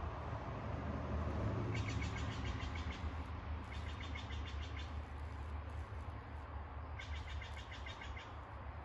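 A bird singing a rapid trill three times, each trill about a second long, over a low steady rumble.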